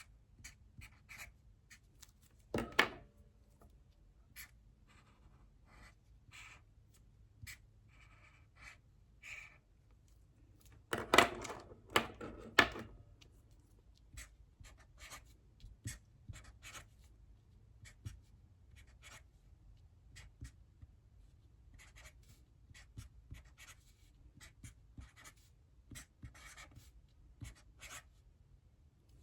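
Handwriting: a stream of short scratching strokes and light taps of a pen or pencil working out math problems, with two louder bursts of handling, one a few seconds in and a longer one near the middle.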